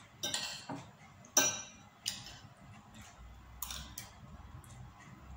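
Metal spoon and fork clinking and scraping on a ceramic plate while eating rice: a handful of short clinks, the sharpest about a second and a half in.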